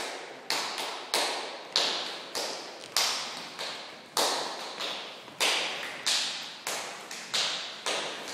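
A steady beat of sharp claps or taps, about one every 0.6 seconds with a few lighter ones between, each ringing on in a reverberant hall.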